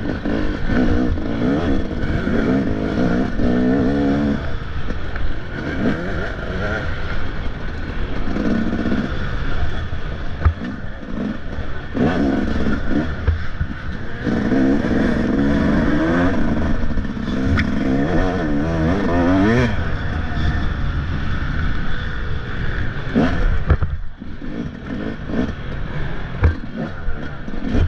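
Dirt bike engine revving hard and easing off again and again, its pitch climbing and dropping, over a constant low rumble with rattles and scrapes.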